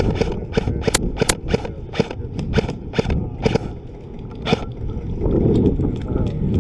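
ASG CZ 805 Bren A2 airsoft electric rifle firing single shots in quick succession, about three a second, stopping about four and a half seconds in. A low rustling noise follows near the end.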